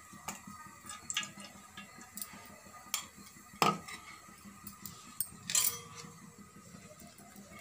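Scattered clinks and knocks of a utensil against an aluminium cooking pot, the two loudest about three and a half and five and a half seconds in.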